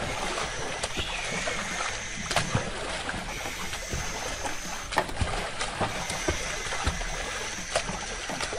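Small splashes and sloshing of shallow water in a plastic toy pool as toy figures are moved through it, with scattered light knocks of hard plastic on plastic.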